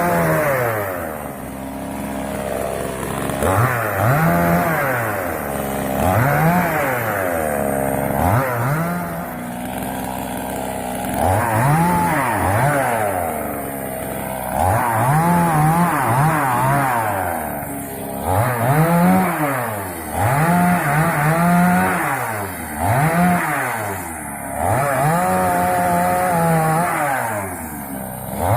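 Two-stroke Moto Yama chainsaw cutting dry wood, its engine revving up and dropping back over and over, about every one to two seconds.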